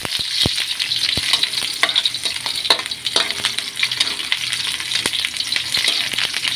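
Garlic and onion sizzling in hot cooking oil in a pan as they are stirred, with the utensil clicking against the pan every so often.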